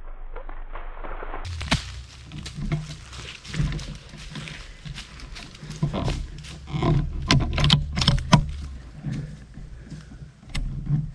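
Dry fallen leaves crunching and rustling in irregular crackles, over a low rumble on the microphone.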